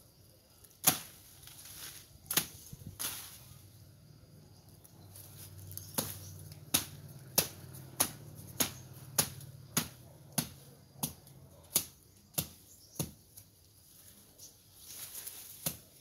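A blade chopping at brush and woody stems near the ground. A few scattered strokes come first, then a steady run of sharp chops about every two-thirds of a second for several seconds.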